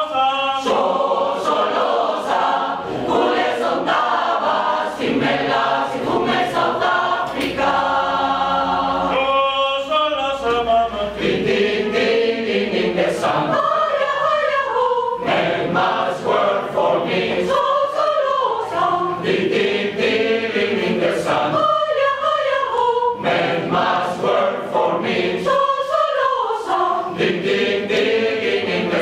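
Large mixed choir of women's and men's voices singing together, with a stretch of held chords about a third of the way in.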